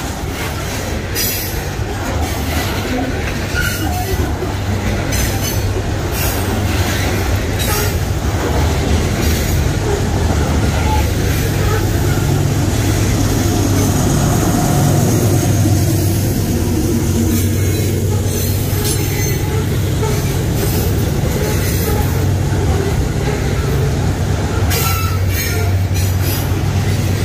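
A long freight train of steel hopper wagons rolls past close by, with a steady rumble of wheels on rail and recurring sharper wheel noises every few seconds. The hum of a diesel-electric locomotive running mid-train grows louder about halfway through as it passes.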